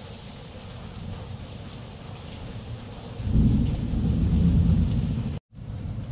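Steady heavy rain falling on leaves and ground, with a louder low rumble rising about three seconds in and lasting about two seconds. The sound cuts out for a moment near the end, then the rain resumes.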